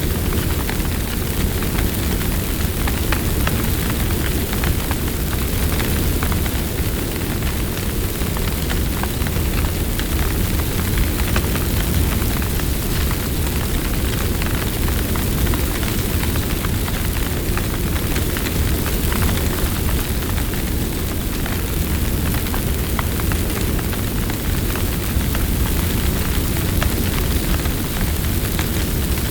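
Large wildfire burning close: a steady low rumble of flame under dense, continuous crackling.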